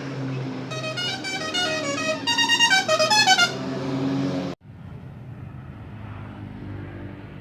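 Bus 'telolet' musical horn playing a quick tune of short notes stepping up and down in pitch, in two runs, the second louder, over a steady low engine drone. The sound cuts off suddenly about four and a half seconds in, and quieter engine and traffic noise follows.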